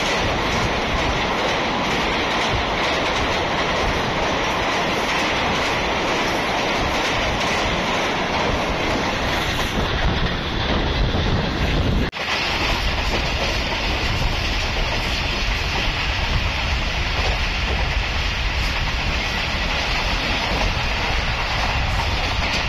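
Express passenger train running at speed, its wheels going over the rails, heard from the side of a coach. The sound breaks off for an instant about twelve seconds in and then carries on.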